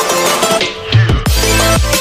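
Electronic background music with a steady beat and a deep bass that sweeps downward a couple of times.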